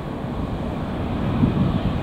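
Low, steady rumble of a departing Emirates Airbus A380-861's four Engine Alliance GP7200 jet engines, with wind buffeting the microphone in gusts about one and a half seconds in.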